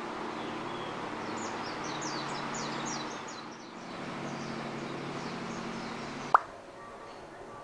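Steady outdoor hiss of wind and surf, with a bird giving a quick series of short falling chirps in the first few seconds. About six seconds in comes a single short rising 'plop', the loudest sound, after which the background goes much quieter.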